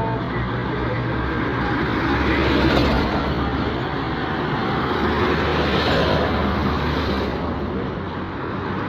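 Road traffic passing close by: a steady din of vehicle engines and tyres, swelling as vehicles go past about three seconds in and again about six seconds in.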